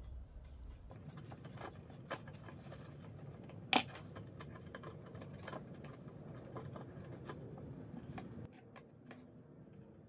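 Small scattered clicks and ticks from hands handling a thin metal wire and small parts, with one sharper click about four seconds in.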